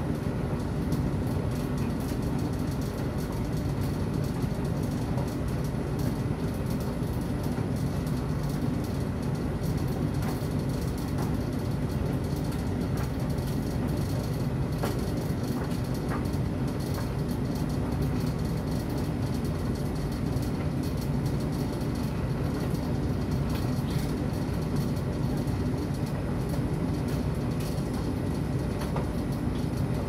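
Electrolux tumble dryer running with a load of laundry: a steady low rumble from the turning drum and motor, with a few faint clicks as the clothes tumble.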